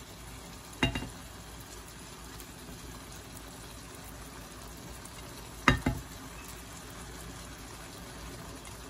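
Meatball and vegetable sauce simmering in a frying pan, a steady bubbling hiss. Two short, louder noises about a second in and near six seconds as pasta is dropped into the sauce by hand.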